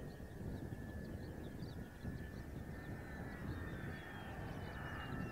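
Mitsubishi F-2's F110 turbofan on landing approach, heard as a fluctuating low rumble under a steady high whine.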